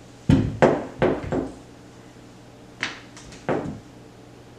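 Hard knocks and clunks of crossbow parts being worked together as the riser is forced onto the rail: four quick knocks in the first second and a half, then three more near the end.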